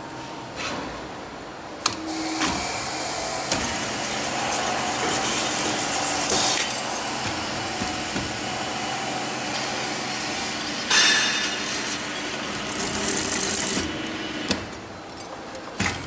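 Stainless steel lid edge-cutting and crimping machine running, its rollers trimming and rolling the rim of a spinning lid with a continuous metal-on-metal grinding scrape. The scrape grows sharper and louder in surges about six, eleven and thirteen seconds in, then drops away near the end, leaving a few metal clinks.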